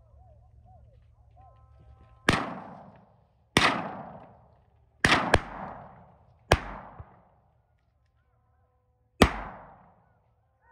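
Six shotgun shots fired at a wild boar: five spread over about seven seconds, with two of them a quarter second apart near the middle. Each shot is sharp and trails off in an echo of about a second.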